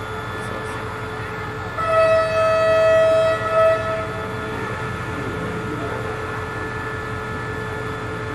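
Train horn sounding one long blast of about a second and a half, then a short second blast, over the steady hum of the standing passenger train.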